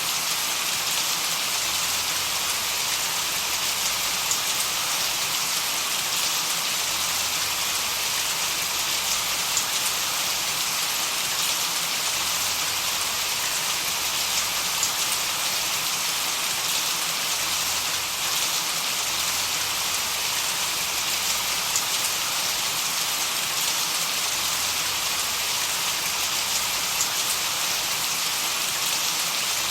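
Steady white-noise hiss, strongest in the high range, with faint scattered tiny ticks that give it a rain-like texture. The noise is even and does not change.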